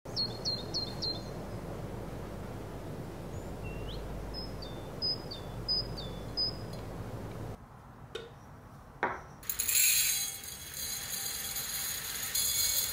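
Small birds chirping in short repeated high chirps over a steady background hiss, then two light glass clinks as empty glass jars are set down, then dry black rice grains pouring into a glass jar in a dense, steady rattling hiss.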